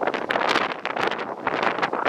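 Strong, gusty thunderstorm outflow wind buffeting the microphone in a steady loud rush.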